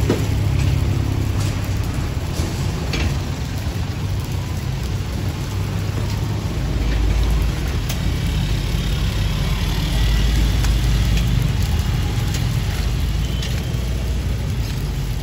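Steady low engine rumble, like a vehicle idling close by, growing heavier about halfway through, over an even hiss, with a few faint clicks.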